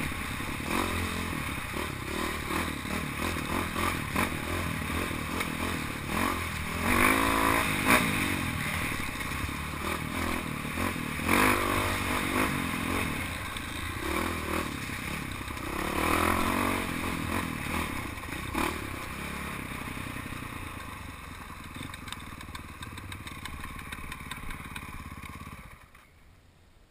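Dirt bike engine running and revving up and down over a rough trail, with scraping and clattering from the bike and brush. The engine sound drops away suddenly near the end.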